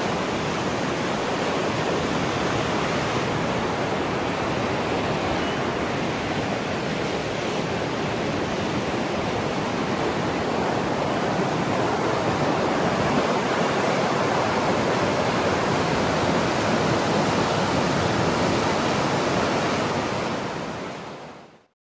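Steady rush of a river's rapids, water running fast over rocks. It fades out a little before the end and stops.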